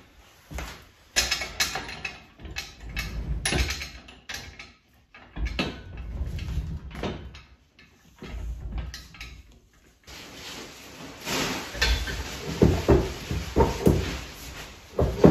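A steel engine hoist being rolled across the shop floor and set up over a milling machine table: irregular metal clanks, knocks and rattles, with a low rolling rumble in between and a busier run of knocks in the second half.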